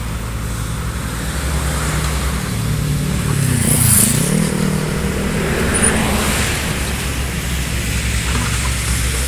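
Small excavator's diesel engine running steadily. About four seconds in, its pitch dips and recovers as it takes on load, with a short crackle at the same moment.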